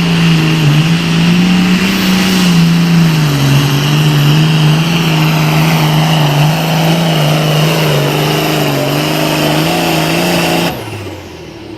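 Turbocharged diesel engine of a Super Farm class pulling tractor running flat out under load while it pulls the sled, its pitch wavering a little as the load changes, with a high whine over it. Near the end the engine is suddenly throttled off and its pitch falls away as the pull ends.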